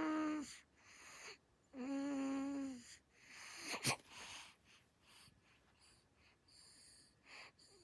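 Baby snoring with a squeaky, wheezing pitch: a steady whistle-like tone about a second long on each breath, heard at the start and again about two seconds in, with softer snuffly breaths between them and a sharp click just before four seconds in.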